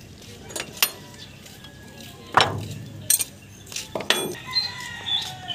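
Steel wrench clinking and knocking against metal engine parts: several separate sharp clinks, the loudest about two and a half seconds in.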